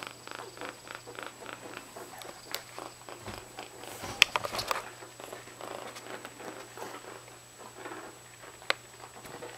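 A kitten purring, in a steady rhythm that is strongest over the first few seconds and then fades. A couple of sharp knocks cut through, the loudest about four seconds in.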